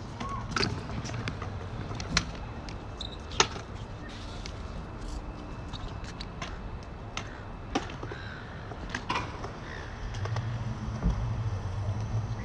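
Stunt scooter's wheels rolling on a concrete skatepark bowl, a low rumble that grows louder in the last few seconds, with scattered sharp clicks and knocks. A few bird calls come in over it.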